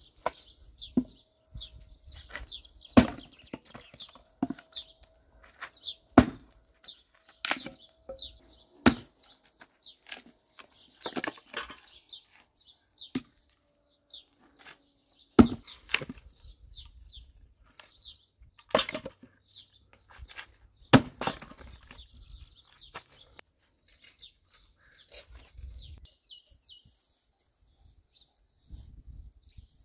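An axe splitting firewood on a wooden chopping block: a sharp chop every second or two, thinning out in the last third. Birds chirp throughout.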